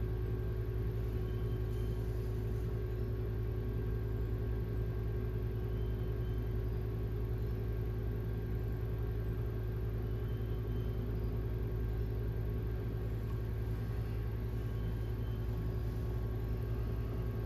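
Electric pottery wheel motor running with a steady, unchanging hum.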